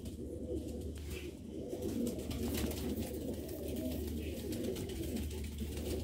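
Several domestic pigeons cooing at once, their low calls overlapping.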